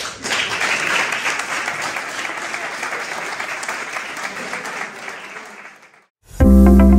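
A roomful of people applauding steadily for about six seconds. The clapping cuts off, and after a brief gap loud music starts abruptly with a deep held bass note near the end.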